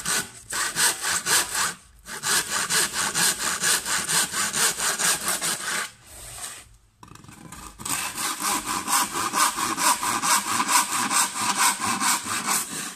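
Handsaw cutting through chipboard in quick, even back-and-forth strokes, finishing a 45° slot in a home-made mitre box. The sawing stops briefly about two seconds in, pauses for over a second around the middle, then carries on.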